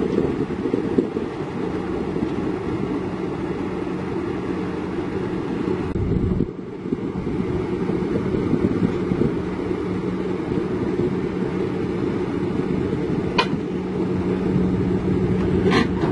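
Kobelco SK210D excavator's diesel engine running steadily, a dense low hum with a steady drone under it. The sound breaks briefly about six seconds in, and a couple of faint clicks come near the end.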